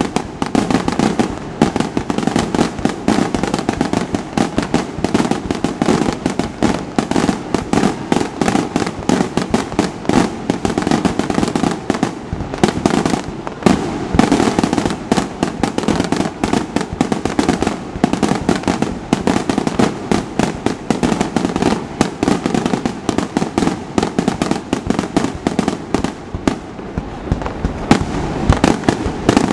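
Aerial firework shells bursting in a dense, unbroken barrage, many bangs and crackles overlapping with hardly a gap.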